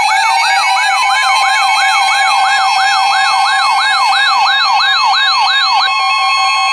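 Layered emergency alert sounds: an electronic siren sweeping up and down about three times a second, with a higher warble and pulsing beeps, over a steady alarm tone that glides up into place at the start. The sweeps stop near the end and leave the steady tone alone, like the NOAA Weather Radio warning alarm tone that comes before a warning message.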